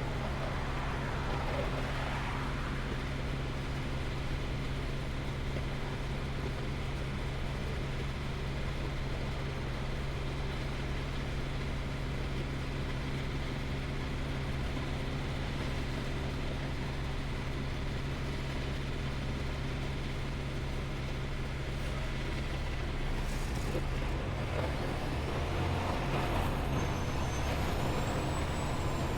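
Semi-truck running: a steady low engine hum with road noise, swelling briefly near the start and again near the end.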